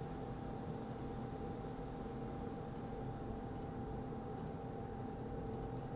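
Faint computer mouse clicks, about seven at irregular spacing, over a steady electrical hum and hiss.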